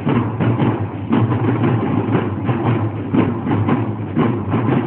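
Marching drum corps playing snare and bass drums together in a fast, steady beat.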